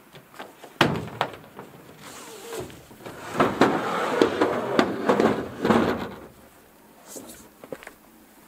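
Tie-down strap buckles released with a couple of sharp clicks, then the canoe's hull knocking and scraping against the car's roof rack as it is lifted and slid off, loudest in the middle, with a few lighter clicks near the end.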